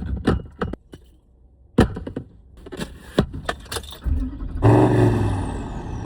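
A few sharp clicks and knocks, then about four seconds in a vehicle engine cranks, starts and settles into a steady idle.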